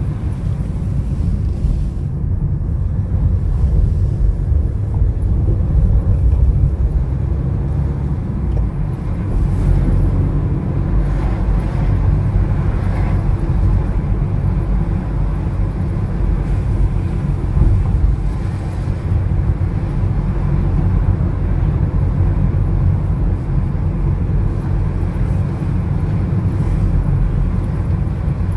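Car driving at town speed, heard from inside the cabin: a steady low rumble of engine and tyres on the road.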